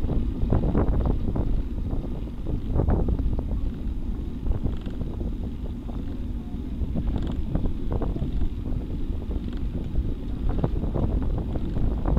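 Wind buffeting the microphone of a bicycle-mounted camera while riding, with a steady low rumble from the road and frequent short knocks and rattles from bumps.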